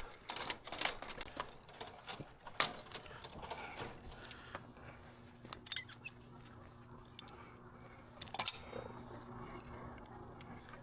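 Scattered light clicks and rattles of small tools and hardware being handled, with a steady low hum coming in about four seconds in.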